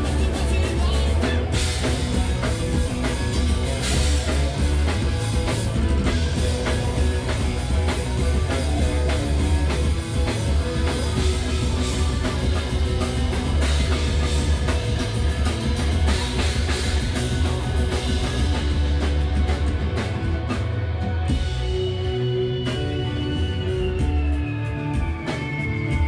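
Live rock band playing amplified: drum kit, electric guitars and bass. About three-quarters of the way through, the drums and bass drop back, leaving a held note that slides down in pitch.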